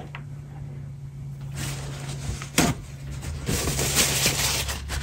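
Paper towel rustling as it is pulled off and handled, in two bursts about a second and a half in and again around four seconds, with one sharp click between them.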